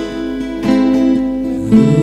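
Two acoustic guitars playing a song, with fresh strummed chords about two-thirds of the way in and again near the end, the second one louder.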